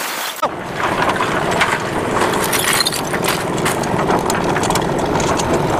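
Concrete mixer's engine running with the drum turning, while the smashed pieces of a television clatter and knock inside the steel drum.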